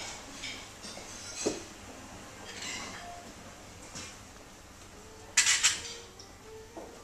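Scattered light clinks and knocks of hard objects, with one loud clatter lasting about half a second, about five and a half seconds in.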